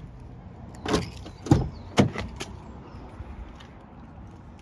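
A Fiat 500X's front door being opened: about four sharp clicks and clunks from the handle and latch within the first two and a half seconds.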